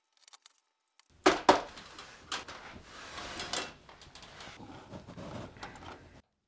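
Electrical cable being fed through the cable clamp and end cap of a sheet-metal baseboard heater: scraping and rubbing of the sheathed wire against the metal, with a few sharp knocks and clicks about a second in. The sound cuts off suddenly near the end.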